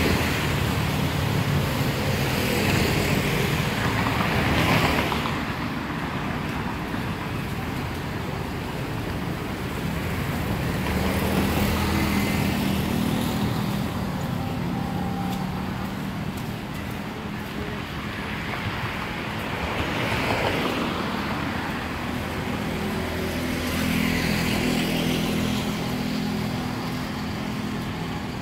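Road traffic on a multi-lane street: a steady hum with several vehicles passing one after another, each swelling and then fading.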